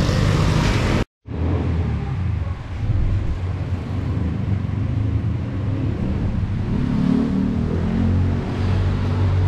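About a second of a Yamaha Aerox scooter riding in road traffic, then a sudden cut. After it comes a steady low rumble of background noise with no clear single source.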